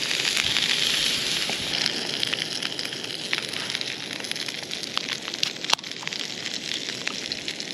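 Sausages frying in oil in a pan on a gas-canister camping stove: a steady sizzle with scattered crackles and spits. A single sharp snap, the loudest moment, comes about two-thirds of the way in.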